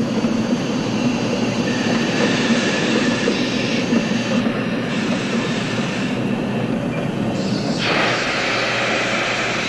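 Steam-hauled train of log flatcars running past, with a steady clatter of wheels on the rails; the sound grows brighter and hissier about eight seconds in as the last cars go by.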